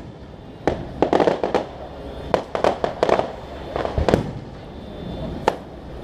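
Aerial fireworks going off: sharp bangs and clusters of rapid crackling pops about a second in and again around three seconds, with a lone bang near the end.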